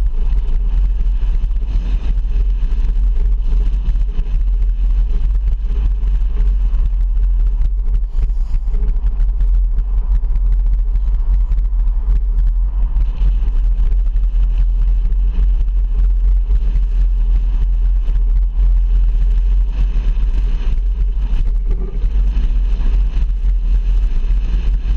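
Car driving on a highway: a loud, steady low rumble of road and engine noise.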